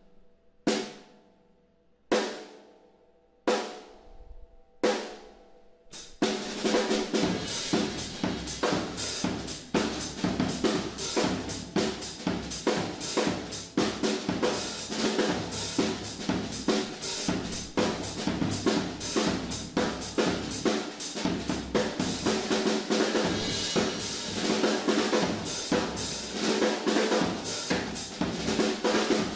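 Odery Eyedentity nyatoh 14x6.5-inch snare drum, tuned low, struck four single times, each hit ringing out for about a second. About six seconds in, a full drum kit starts playing a groove around it, with bass drum, hi-hat and cymbals.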